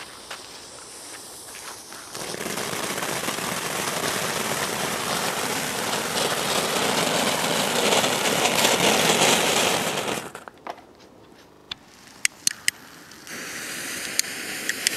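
Small consumer ground-fountain fireworks hissing as they spray sparks. A fuse sizzles first, then a fountain hisses loudly and steadily for about eight seconds and cuts out. A few sharp cracks follow, and another fountain starts hissing near the end.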